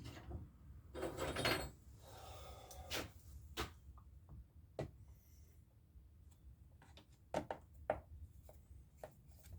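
Scattered light clicks and short scrapes of hand tools being handled and tried on a chainsaw's screws, with a longer scraping rub about a second in.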